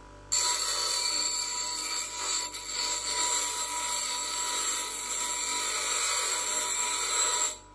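Parkside PDOS 200 bench grinder grinding the tip of a thin steel rod against its stone wheel: a steady, loud hiss that starts abruptly just after the start and cuts off near the end, over the low hum of the grinder's induction motor.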